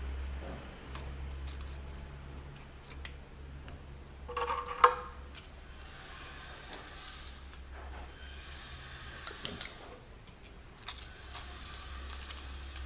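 Metal hand tools clinking and tapping on engine valve gear during a valve clearance adjustment: scattered light clicks, a ringing metal clank about five seconds in, and a quick run of taps near the end, over a steady low hum.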